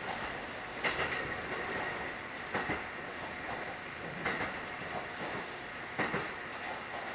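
Running sound inside a 1960-built Kotoden 1080-series electric railcar (ex-Keikyu 1000). The wheels click over rail joints in regular clusters about every 1.7 seconds, which means the train is at a steady speed. Underneath is a constant rumble and a steady high hum.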